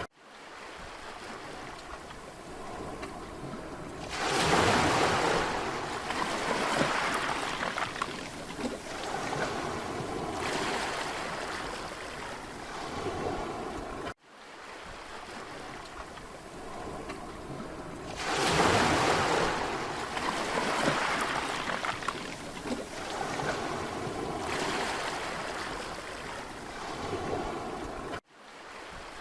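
Sea waves breaking and washing up on a Mediterranean beach. Two waves surge in, one about four seconds in and one about eighteen seconds in, and each hisses back down over several seconds. The sound cuts out for a moment about fourteen seconds in and again just before the end, where the recording is looped.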